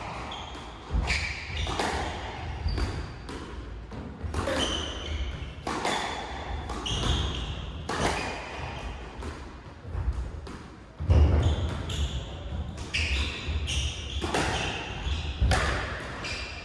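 Squash rally: the ball cracking off the rackets and walls every second or so, with rubber shoes squeaking briefly on the wooden court floor and footsteps thudding.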